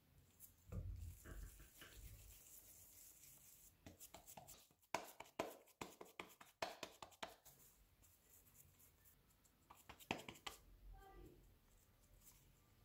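Faint, soft patting of hands shaping a mashed potato-and-lentil kabab patty between the palms: a quick run of light pats in the middle, and a few more near the end.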